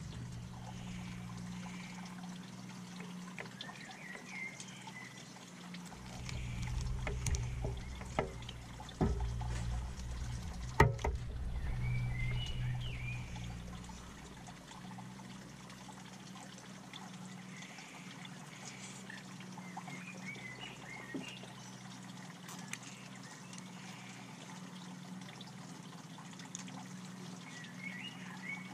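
Steady trickle of running water under a low hum, with a few faint high chirps. In the middle there is a stretch of low rumble with a few sharp knocks.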